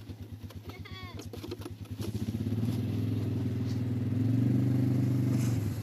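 Engine of the small vehicle towing the sleds: a fast, even putter at first, then opening up and running louder and steadier from about two seconds in as it pulls the sleds away.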